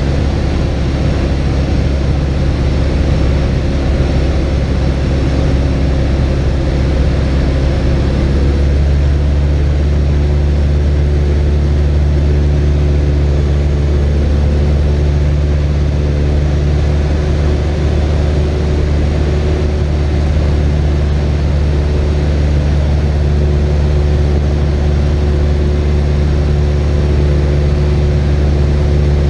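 Cessna 172's piston engine and propeller running steadily in flight, heard from inside the cockpit. The engine note shifts slightly about eight seconds in.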